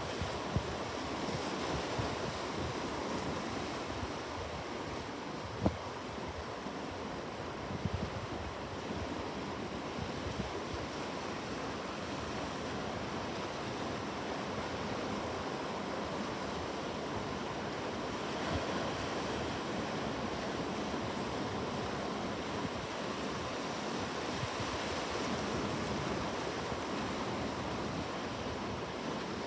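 Ocean surf: waves washing in a steady, continuous rush, with a couple of brief clicks about six and eight seconds in.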